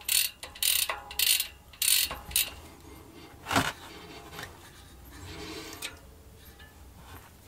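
Rear-hub freehub body of a Merida Silex 300 gravel bike turned by hand with the cassette off: its pawls click in several quick bursts over the first couple of seconds, showing that the grease inside has not glued them. A single knock follows a little over three seconds in.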